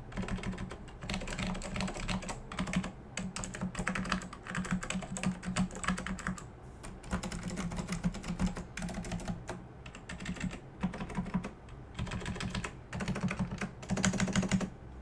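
Typing on an Apple Extended Keyboard II with cream dampened Alps tactile switches: runs of quick keystrokes in bursts, with short pauses between them.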